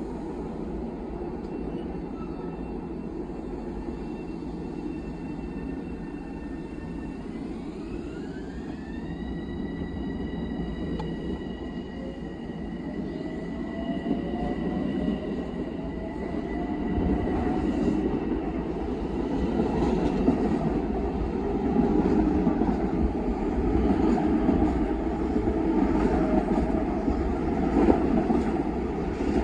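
Long Island Rail Road M7 electric multiple-unit train pulling out and picking up speed. A set of high electric tones steps up in pitch about eight seconds in. A lower motor whine then climbs steadily, and the rumble and clatter of the wheels on the rails grow louder toward the end.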